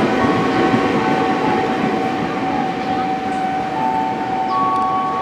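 Railway noise: a steady rumbling haze with several sustained whining tones, which shift to new pitches about four seconds in.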